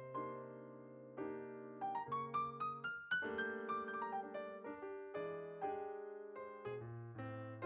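Solo piano playing gentle, slow background music: single melody notes over sustained low chords, a new note struck roughly every half second.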